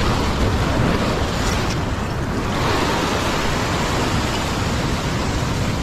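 Ocean swell surging and breaking against a rock ledge: a steady wash of surf that swells about two and a half seconds in.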